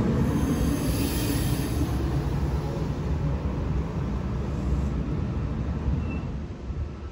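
Double-deck electric passenger train rolling slowly alongside the platform, a steady low rumble of wheels and running gear that eases off near the end as the train slows.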